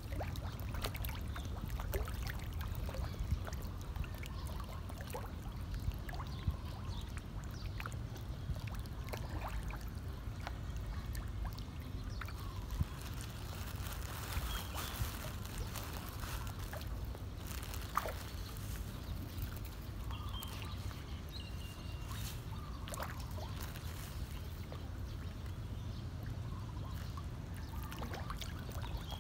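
Water splashing and sloshing as a packed school of fish thrashes at the surface competing for scattered food, with many small irregular splashes.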